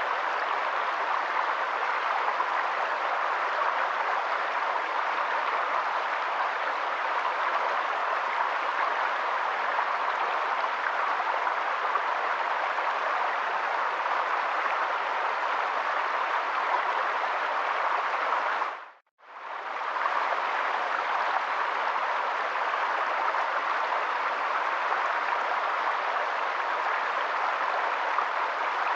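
Flowing water in a stream, a steady even rushing with no other sounds over it. About two-thirds of the way through it fades out to silence for an instant and comes straight back.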